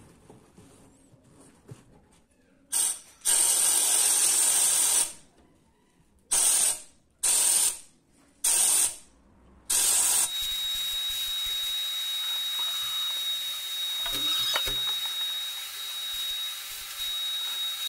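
Gravity-feed sandblast gun blasting abrasive with compressed air inside a blast cabinet, frosting a stencilled glass plate. It fires one burst of about two seconds and four short bursts, then blasts continuously from about ten seconds in with a steady high whistle.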